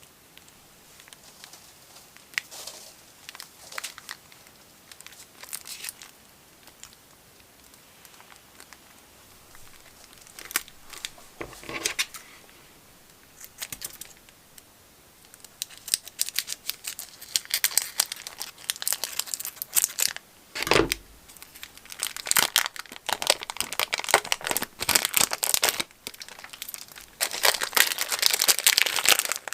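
Hand-played slime crackling and popping as it is squeezed and stretched: scattered small pops at first, then a dense, louder run of crackles through the second half, with a couple of soft thuds.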